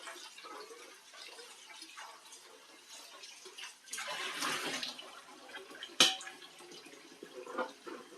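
Dishes being washed at a kitchen sink: water splashing and dripping, with a louder rush of running water about four seconds in and a single sharp knock about six seconds in.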